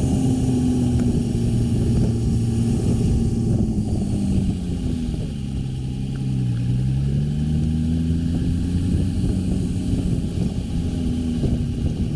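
Vehicle engine running on the move, its note dropping about halfway through and then rising again, over steady road noise.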